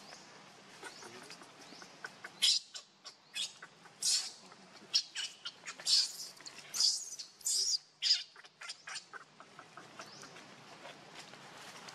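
A baby monkey squealing: a quick run of short, shrill, high-pitched cries that starts about two and a half seconds in and stops about eight seconds in.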